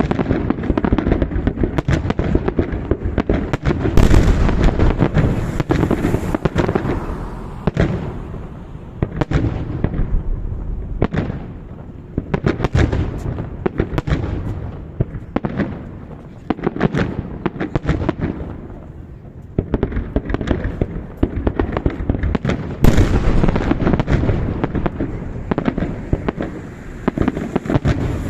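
Fireworks salute: a dense, continuous barrage of shell bursts and crackling bangs over a low rumble. The heaviest volleys come about 4 seconds in and again near 23 seconds.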